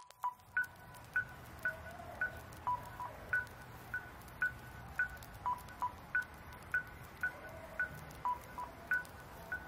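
Quiet electronic music intro made of short beeps at two pitches, a lower and a higher one, about two a second, over a faint low hum.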